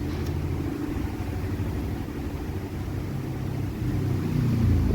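A steady low mechanical rumble, growing a little louder near the end.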